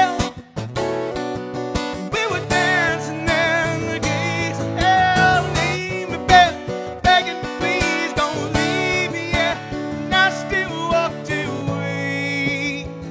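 Acoustic guitar strummed steadily in a country song's instrumental break between verses, with a wavering, bending melody line carried over the strumming.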